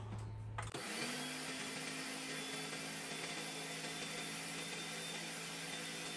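Countertop blender motor starting about a second in, with a brief rising pitch, then running steadily as it grinds dry oats and cinnamon into a flour.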